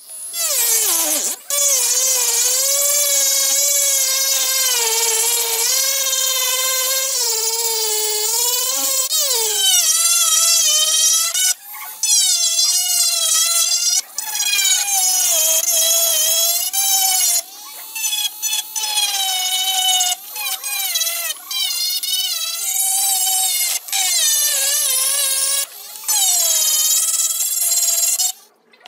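Handheld rotary tool with a sanding drum running at high speed: a loud, high whine whose pitch wavers and sags as the drum is pressed against a phone's metal frame strip and plastic back cover. It spins up at the start, then stops and restarts several times in the second half.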